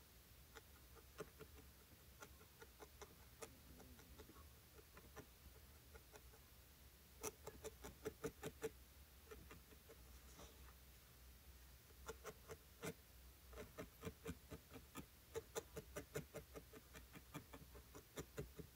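Barbed felting needle stabbing wool into a foam felting mat: faint, sharp ticks coming in runs of about four a second, the longest run in the second half.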